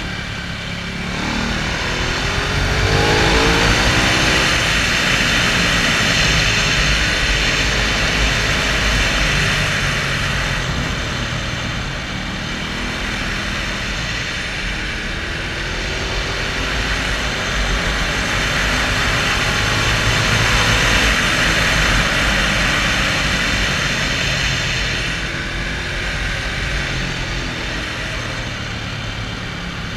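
Motorcycle engine running at riding speed, its revs rising and falling through the bends, under a steady rush of wind on the microphone.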